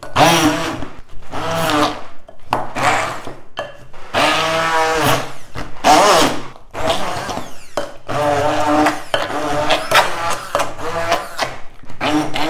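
Corded immersion blender puréeing frozen banana slices and berries in a glass bowl. It runs in a series of short bursts, its motor pitch sagging and rising as the blade works through the frozen fruit.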